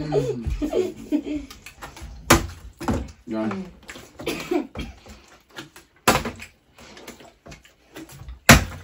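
Sharp knocks of a bottle landing on a hard surface: three loud ones, about two, six and eight and a half seconds in, the last the loudest, with a few smaller taps between. Indistinct voices run under the first few seconds.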